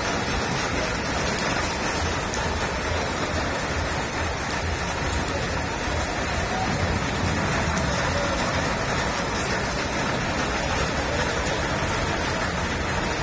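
Heavy rain pouring steadily onto flooded streets, a dense, even hiss.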